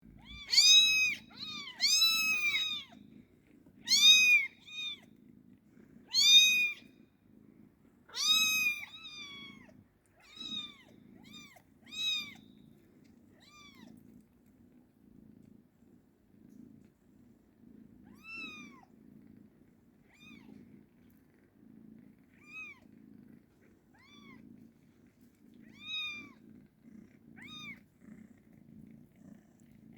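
Kitten meowing in a series of short, high-pitched cries that rise and fall in pitch, loud and close together for the first eight or nine seconds, then fainter and more spaced out, over a steady purr.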